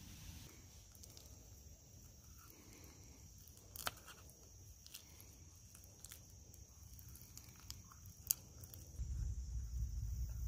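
Faint, steady high-pitched insect drone, broken by two sharp clicks about four and eight seconds in; a low rumble sets in near the end.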